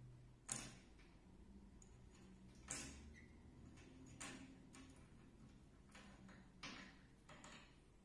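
Faint, irregular light taps and clicks, about five in all, from a budgie pecking and picking at a small object on a slatted table.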